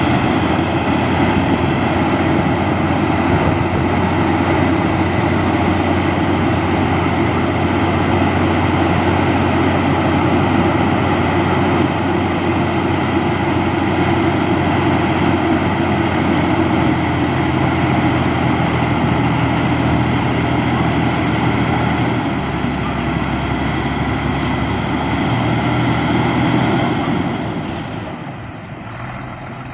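Heavy diesel engine of an earthmoving machine, such as a dump truck or bulldozer, running steadily and loud with a low hum, easing off near the end.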